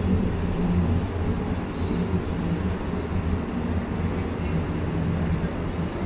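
A steady low mechanical hum with a constant pitch and no sudden sounds.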